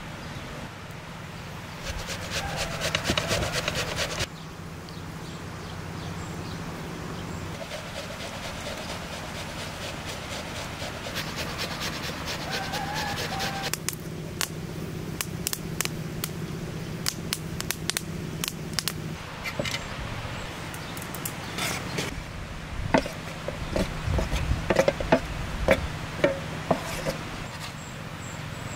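Wood fire crackling with scattered sharp pops, then an onion being grated on a metal box grater in quick regular rasping strokes near the end. Before these, a short patch of rustling and clicking comes from handling food at the bowl.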